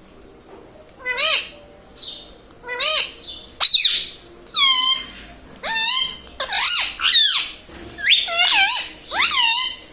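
Indian ringneck parrot vocalizing in a series of about eight short, loud, high-pitched calls that bend up and down in pitch, coming one after another with brief pauses.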